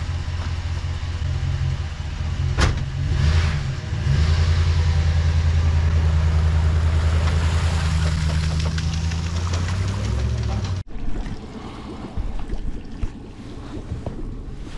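A motor running with a steady low hum, louder from about four seconds in, then cut off abruptly about eleven seconds in, leaving a quieter, noisy background.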